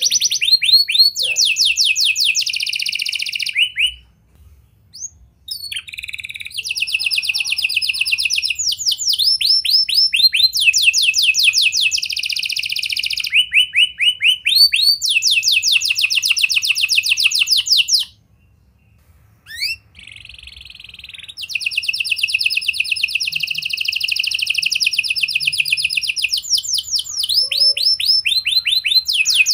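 Domestic canary in full song: long, loud rolls of rapidly repeated notes that switch from one pitch to another, broken by two short pauses, about four seconds in and again about eighteen seconds in.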